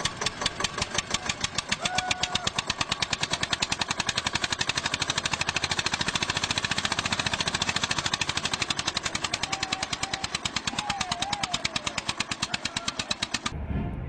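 Tractor engine chugging in a fast, even beat of exhaust pulses, labouring as it hauls a loaded trailer with its front wheels lifting. It cuts off abruptly near the end, giving way to a low engine rumble.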